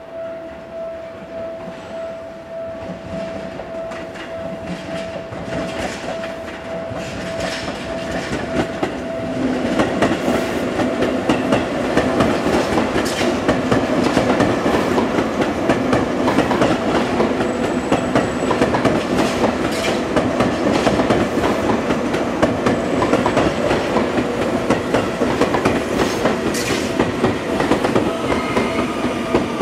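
Electric commuter train on the Seibu Ikebukuro Line running past close by, wheels clacking over the rail joints. The train is faint at first and loud and steady from about ten seconds in. A steady pulsing tone sounds for the first nine seconds or so, and a falling whine rises over the train near the end.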